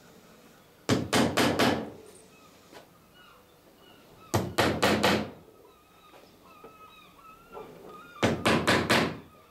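Three quick runs of four or five sharp hammer taps on the wooden hull of a clinker dinghy, a few seconds apart, driving copper nails into the holes drilled through the plank lap.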